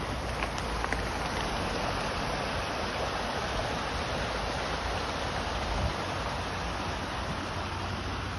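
Steady rushing noise with a low rumble underneath, the kind made by running water or wind outdoors.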